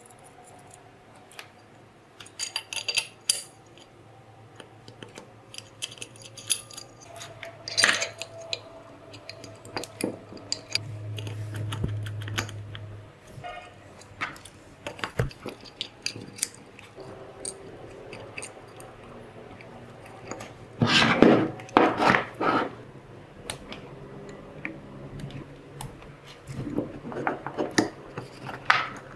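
Hands fitting small metal and plastic parts into a model engine kit's plastic base: scattered clicks, taps and light metallic clinks as a metal push-button switch is seated and wires are routed, with a louder run of knocks about 21 seconds in.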